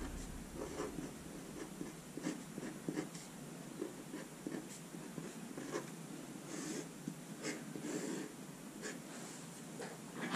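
Felt-tip fineliner pen writing on paper: a run of short, light scratchy strokes as an equation is written and a box is drawn around it.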